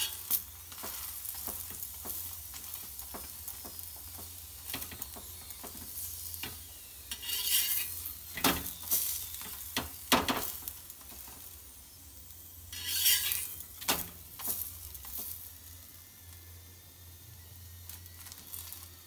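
Oiled stuffed cauliflower paratha sizzling on a hot iron tawa. A steel spatula scrapes and presses it against the pan now and then as it is roasted on both sides.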